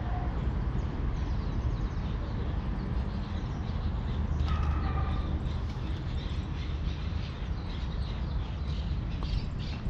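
Park ambience: small birds chirping in many short calls over a steady low rumble.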